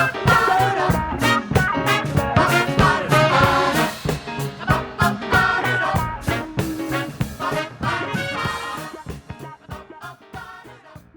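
Instrumental ending of a 1976 recorded pop song, played by a full band, fading out steadily over the second half.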